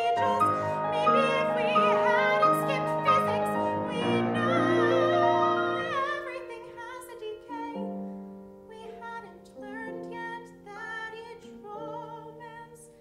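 A woman singing a musical-theatre song with vibrato over grand piano accompaniment, loud and full at first, then softer and gentler from about halfway through.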